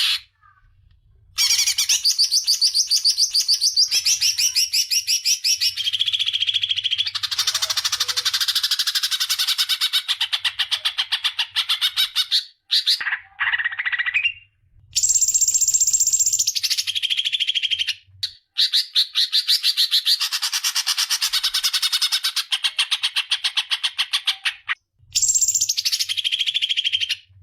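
Recorded songbird calls for training cage birds: long phrases of rapid, harsh trilling and chattering, broken by short pauses.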